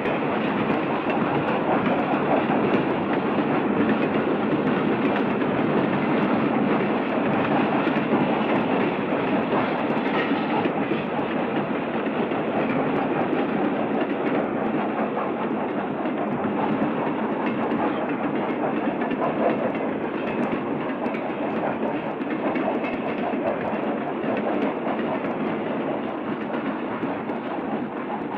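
Union Pacific Big Boy steam freight train passing at moderate speed: a steady rolling rumble of wheels clicking over the rail joints, easing away slightly near the end.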